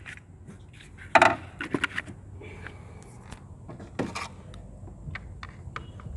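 Hand tools and engine parts being handled: a clatter of knocks about a second in, another about four seconds in, and scattered small metallic clicks, as the ignition coil and spark plug of a misfiring cylinder are being got at.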